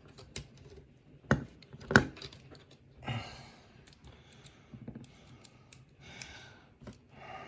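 Small metal clicks and taps from handling a lock cylinder and its tools, with two sharper knocks about a second and a half and two seconds in.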